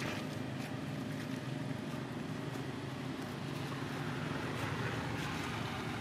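A steady low engine drone with a hiss of background noise, like a motor vehicle running at a distance, plus a few faint clicks.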